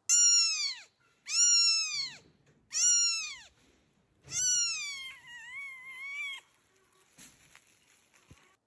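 A cat meowing four times, each meow falling in pitch; the last is longer and wavers up and down before stopping.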